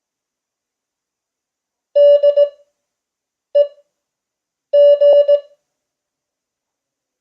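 Morse code (CW) sent as a single steady beeping tone: three characters of dots and dashes, about 2, 3.5 and 5 seconds in, with long gaps between them. This is Farnsworth spacing at 5 words per minute: the characters are keyed fast and the gaps are stretched out.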